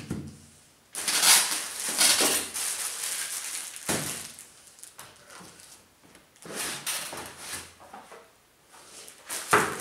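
Unpacking noise: plastic wrapping rustling and crinkling as accessories are pulled out of a cardboard box, with a few sharp knocks as items are set down on the workbench.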